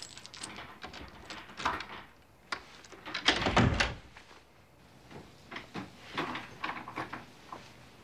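A door being unlocked with a key and opened: a run of clicks and knocks, the loudest and heaviest thump about three seconds in.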